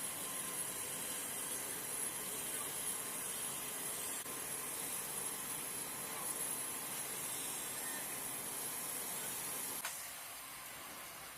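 A steady, even hiss with a faint high-pitched whine running through it, which drops in level with a small click near the end.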